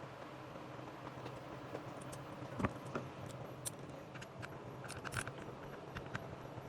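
Scattered small clicks and taps of a screwdriver and handled parts while the screws holding a steam iron's boiler are undone, with a sharper knock about two and a half seconds in.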